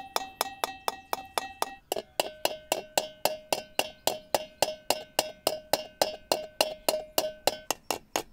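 Hammer tapping lightly and steadily on the bottom of an aluminium pot, about four taps a second, each with a short metallic ring. The pitch of the ring drops a little about two seconds in. The hammer is peening a rolled aluminium plug flat to seal a hole in the pot.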